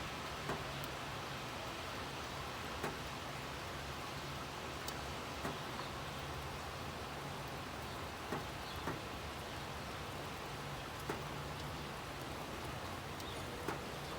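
Steady rain falling, an even hiss, with single sharp drips every second or two as drops land on a hard surface close by. A low steady hum runs underneath.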